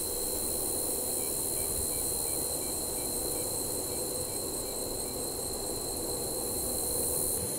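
Steady night-time insect chorus, a constant high-pitched trill, over steady low background noise.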